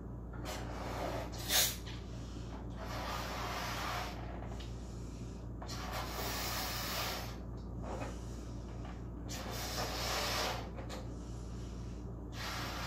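A person blowing up a balloon by mouth: about five long breaths blown into it, each a second or so, with short pauses between.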